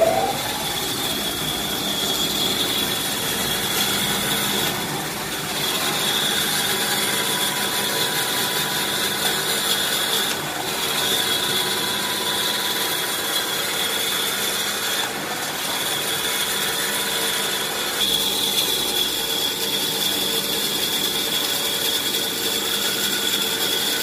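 Manual hand towel paper cutting machine running with a steady mechanical whine that carries a constant high tone, easing off briefly about three times.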